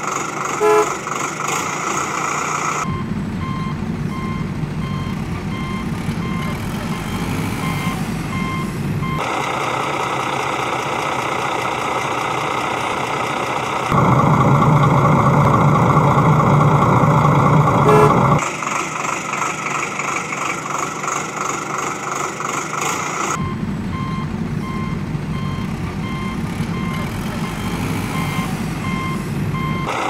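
Heavy-vehicle engine sound effects, edited in and switching abruptly every few seconds, with a reversing beeper sounding a steady run of beeps in two stretches. The loudest stretch is an engine running for about four seconds in the middle.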